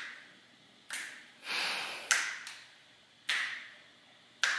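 Sharp taps or clicks repeating at an even pace, about one every second and a bit, each dying away quickly. A softer swelling rush comes between two of them about halfway through.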